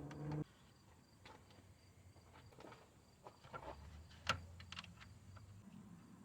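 Faint, scattered clicks and taps of hand tools and bolts being handled while parts are fastened, with one sharper click a little past four seconds in. A short low hum sounds in the first half second.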